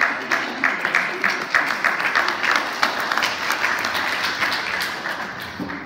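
Audience applauding, with one nearby person's sharp claps standing out at an even pace of about three a second; the applause tails off and stops near the end.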